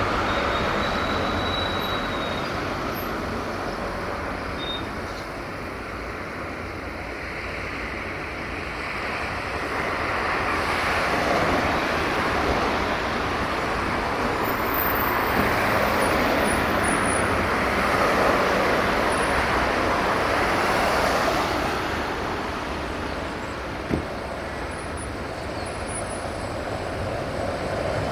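Road traffic on a busy city street: cars passing in a steady wash of tyre and engine noise that swells for several seconds mid-way, then eases off. A single sharp click comes late on.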